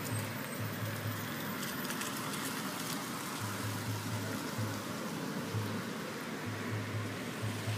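Steady outdoor background hiss with a low rumble that comes and goes every second or so; no clear animal calls.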